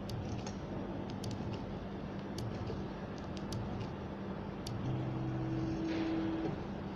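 Automatic LED strip soldering machine running: a steady machine hum with scattered light ticks, and an added motor whine from about five seconds in that stops about a second and a half later.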